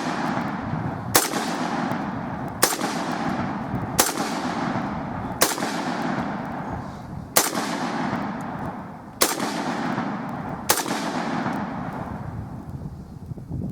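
Ruger Mini-14 semi-automatic .223 rifle firing about eight single shots at a steady pace, roughly one every one and a half seconds, each shot ringing out with a long echo.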